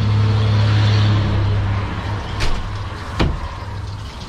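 A steady low machine hum, loudest for the first second or so and then fading back, with two sharp knocks near the middle and a little later.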